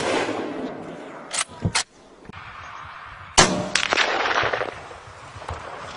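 Hunting rifle shots. An echoing tail carries into the start, two quick shots come about a second and a half in, then a loud shot about three and a half seconds in, followed by several more in quick succession with a long echo.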